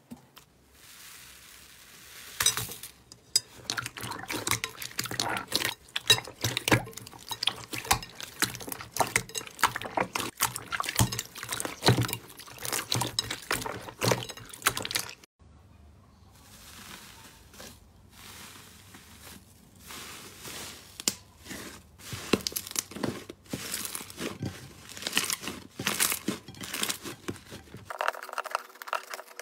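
Slime being poked, squished and stretched by hand in glass bowls: rapid, irregular sticky clicks and small pops of trapped air. The sound breaks off briefly about halfway through and changes again near the end as a new slime clip starts.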